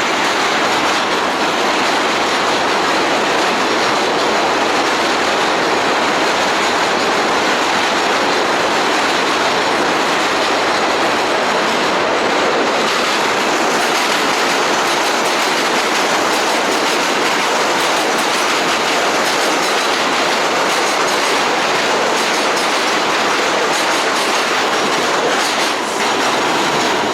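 New York City subway train running on the rails, a loud, steady noise of wheels on track.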